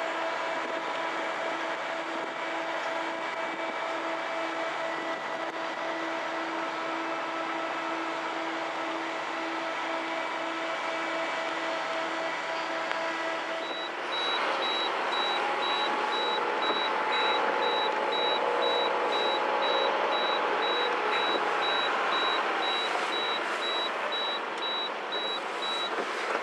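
Steady machinery noise from a car ferry, with a repeating low electronic beep. About halfway the low beep stops and a higher-pitched repeating beep takes over.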